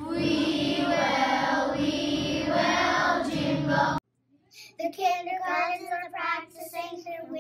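Children singing together. About four seconds in the singing cuts off abruptly, and after a brief silence a small group of young children carries on singing in short phrases.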